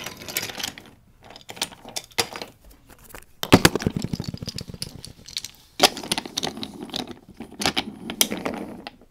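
Wooden toy trains and track being handled, clattering and knocking in irregular bursts, with a loud fast run of clicks about a third of the way in.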